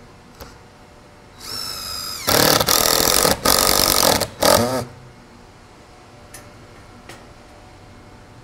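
Cordless drill/driver driving a Cortex screw into PVC trim: the motor whines up about a second and a half in, then the loud driving runs for about two and a half seconds in three bursts before stopping. Two faint clicks follow near the end.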